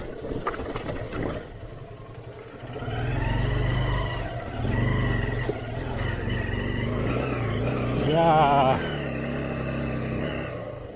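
Motorcycle engine running at low revs, coming in about three seconds in as the bike is ridden slowly down a steep off-road track. Near the end comes a short wavering, higher sound, the loudest moment.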